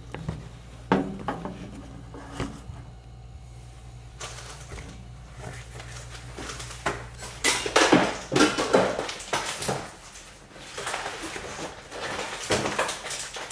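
Handling noises: a few clicks and knocks, then the rustle and crackle of a stiff sheet of vinyl car-wrap film being unrolled and handled, in bursts loudest in the middle and near the end. A low hum runs under the first part.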